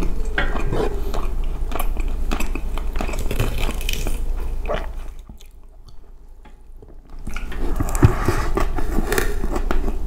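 Close-miked chewing and wet mouth sounds of a person eating spiced rice by hand, with a quieter spell about halfway through.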